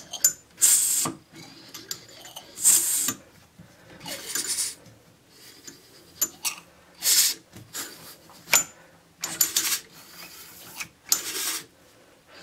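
Hand-turned cast-iron model steam engine puffing air out of its cylinder ports with each piston stroke: about six short hisses, roughly every two seconds, with light metal clicks between them. The piston is making compression, a very good sign with no gaskets fitted.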